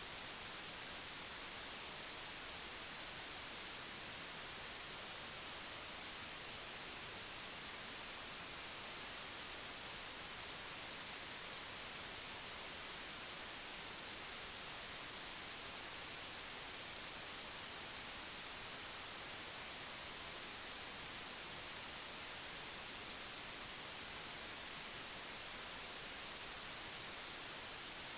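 Steady, unchanging hiss, strongest in the treble, with no other sound standing out.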